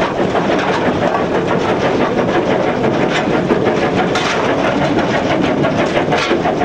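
Steam locomotive working hard, heard from inside the cab: loud, continuous exhaust beats in quick succession mixed with the rattle and clatter of the footplate, with no let-up.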